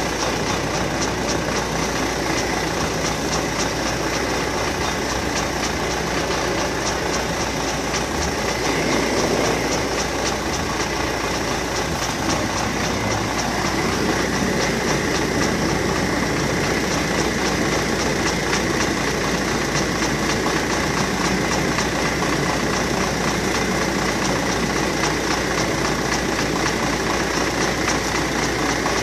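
MTZ-82 tractor's four-cylinder diesel engine idling, warming up after a cold start at −7 °C. It runs steadily, growing slightly louder about half way through.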